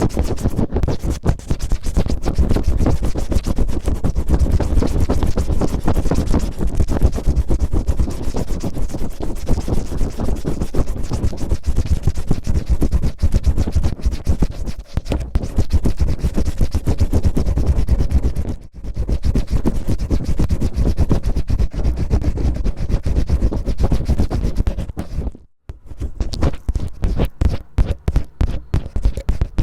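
Cellophane rubbed and crinkled roughly against the microphone, ASMR ear-cleaning style: a dense, rapid crackling that breaks off briefly twice, the second gap near the end.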